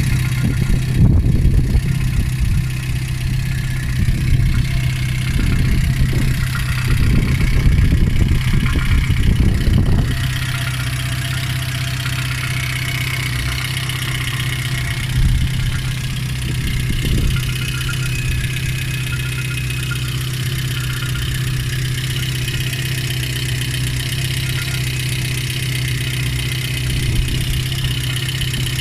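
Lada 2114's 1.6-litre eight-valve petrol engine idling steadily with its alternator belt off, with a knock that the owner suspects comes from the water pump. The sound is louder and rougher for the first ten seconds or so, then settles to an even idle.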